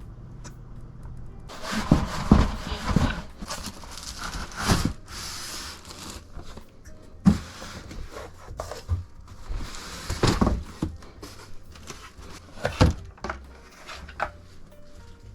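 Hands handling computer parts and their packaging: irregular rustling with sharp knocks and taps, a few louder knocks standing out about seven and thirteen seconds in.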